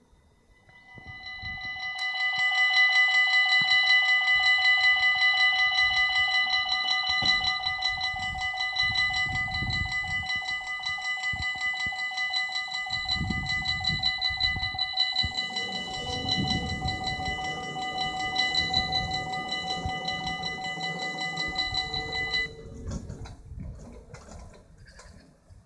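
Electronic bell signal of an Infrabel level crossing, the newer bell tone, warning that a train is approaching. A fast, steady ringing at several fixed pitches swells in over the first two seconds, rings for about twenty seconds, and stops abruptly once the barriers are down.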